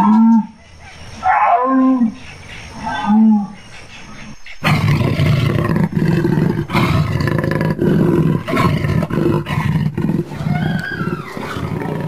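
Jaguar vocalizing: three short calls about a second and a half apart, each rising and falling in pitch, then, from about four and a half seconds in, a long rough growl that trails off near the end.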